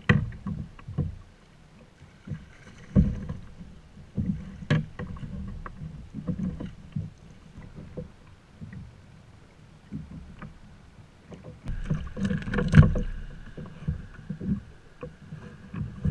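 Small waves slapping and knocking against the plastic hull of a sit-on-top kayak, in irregular low thumps with sharper clicks and bumps of gear.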